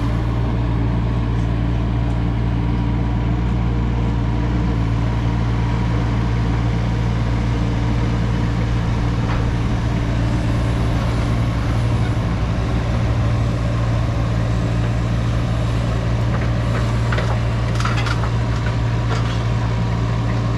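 Kubota U25 mini excavator's diesel engine running steadily as the machine tracks up the loading ramps onto a trailer, with a few light knocks near the end.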